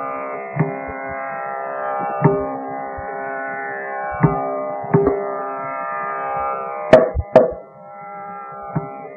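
Carnatic classical concert music: a steady tanpura drone with scattered sharp mridangam strokes, the two loudest close together about seven seconds in.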